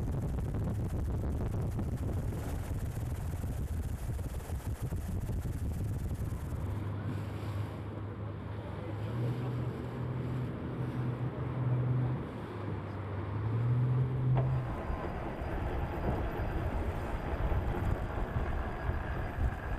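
Wind buffeting the microphone and water rushing around racing sailboats in rough seas, with a low motor drone that shifts up and down in steps for several seconds in the middle.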